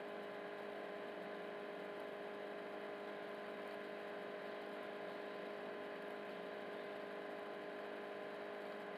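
A steady electrical hum made of several constant tones, unchanging throughout, with no distinct stirring or scraping sounds.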